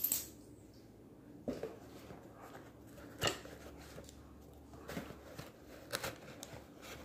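A few faint, sharp clicks and knocks a second or two apart, like small objects being handled, over quiet room tone.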